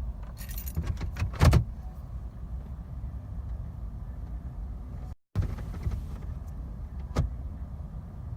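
Car keys jangling and clicking at the ignition, with a louder knock about a second and a half in and another single click near the end, over a steady low rumble. The engine does not crank: the car will not start, which the owner puts down to it not registering that it is in park.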